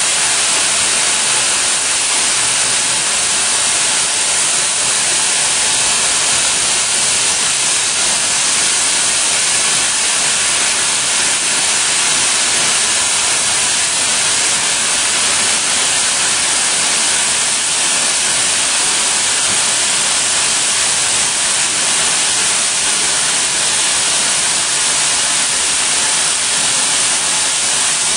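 Steady, high-pitched hiss from the cooling nozzles blowing on a friction stir welding tool as it runs along an aluminium seam. The noise is even, with no rhythm or tone.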